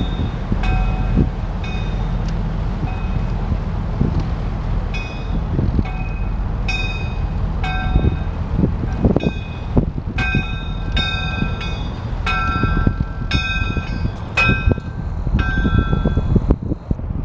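Motor yacht underway: a steady low rumble of engine and passing water, with irregular thumps of waves against the hull. Over it, short bell-like metallic clinks ring out again and again at uneven intervals, coming thicker in the second half.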